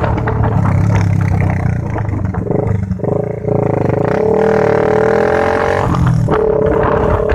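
Motorcycle engine running with a steady drone and low rumble of wind on the microphone; the engine note wavers up and down about midway through.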